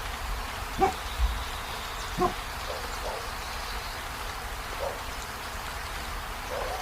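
Steady rain falling, with a few short animal calls over it, the two loudest in the first half.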